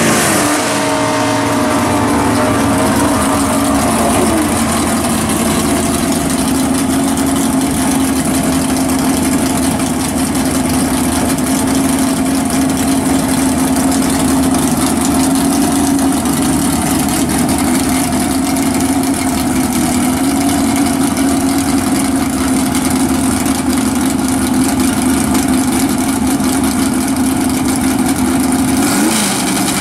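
A 1969 Chevrolet Chevelle drag car's V8 idling loudly and steadily, its revs falling away in the first few seconds and dipping briefly near the end.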